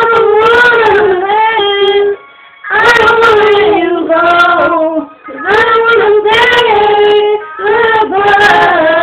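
A woman and her daughter singing together in four sung phrases with short breaks between them.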